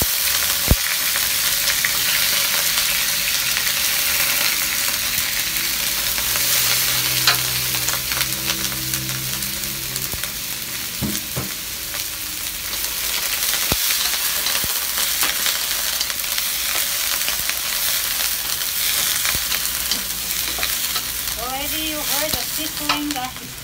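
Broccoli sizzling loudly in hot oil and garlic in a wok as it is stir-fried, with the wooden spatula clicking against the pan now and then.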